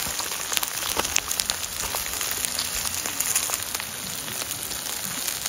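Skewered meat and garlic cloves sizzling on foil over a grill: a steady hiss dotted with many small pops and crackles.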